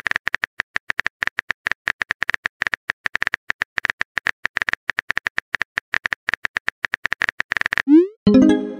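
Phone-keyboard typing sound effect: a fast run of short beeping clicks, about eight a second, for nearly eight seconds. Near the end comes a quick rising swoop and then a short chime, the cue for a chat message being sent and arriving.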